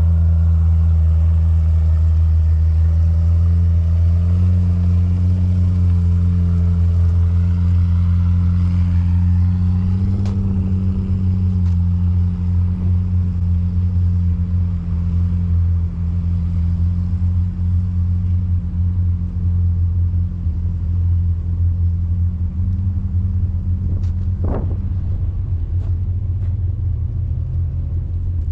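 Jeep engine running steadily at low revs while crawling along the trail, with a couple of short knocks, one about ten seconds in and one near the end.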